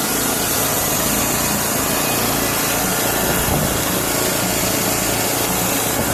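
Sawmill running, its engine and saw blade cutting through a log: a loud, steady sawing noise over a low engine note.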